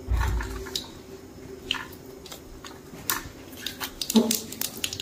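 Whole spices and two dried red chillies crackling in hot mustard oil in a kadhai during a tadka, with scattered small pops over a faint steady hum. A low thump right at the start.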